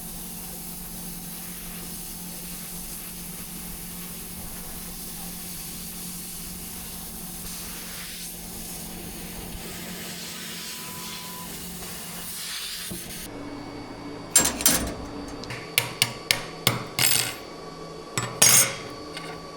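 Sheet-metal laser cutter running with a steady hum and hiss, which cuts off about 13 seconds in. Then come a run of sharp metallic clinks and knocks as thin cut steel parts are handled and knocked loose.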